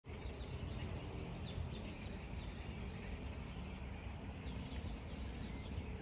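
Scattered short chirps of many birds in bare treetops over a steady low background rumble.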